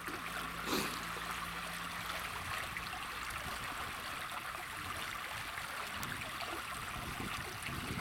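Ditch water pouring over the lip of an adjustable weir gate and churning below it, a steady rush.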